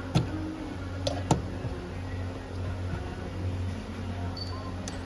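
A few short sharp clicks or knocks, two close together about a second in and one near the end, over a steady low hum.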